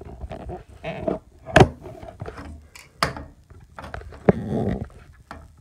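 A wrench gripping and turning a shower head clockwise to tighten it onto the shower arm: a series of sharp clicks and knocks, the loudest about a second and a half in, with a short scraping rasp near the end.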